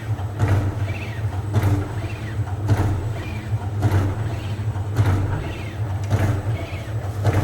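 Bakpia production machine running: a steady motor hum with a regular clack about once a second as it cycles.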